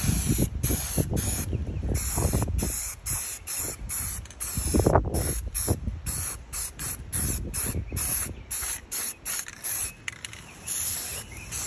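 Aerosol spray can of primer hissing in many short on-and-off bursts as it is sprayed.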